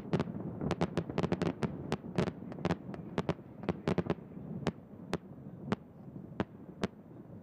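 Fireworks bursting: many sharp pops and bangs over a low rumble, dense at first and thinning out to scattered single pops as the display dies down.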